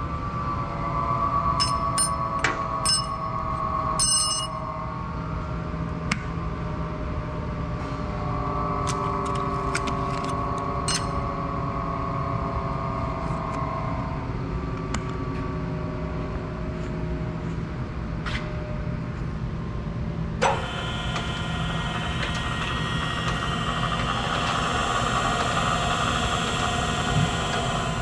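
Acer AGS-1224AHD hydraulic surface grinder running: a steady machine hum with a whine from the hydraulic power unit's electric motor and pump, and a few sharp metallic clicks in the first seconds and again around ten seconds in. About twenty seconds in the sound suddenly gets fuller and hissier and stays that way.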